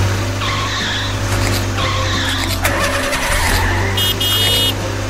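Vehicle sound effect for an animated school bus: a steady engine rumble with tires skidding in several stretches, over light background music.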